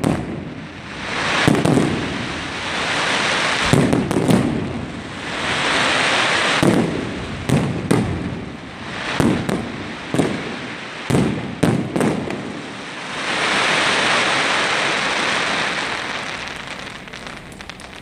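Fireworks display: a rapid series of aerial shell bursts, some bangs in quick pairs and triples, with stretches of crackling hiss between them. The last long crackle fades away near the end.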